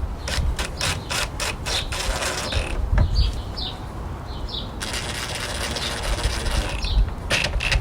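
Hand ratchet clicking as a screw is driven: a string of separate clicks, about three or four a second, then a faster run of continuous clicking about five seconds in. Birds chirp faintly in the background.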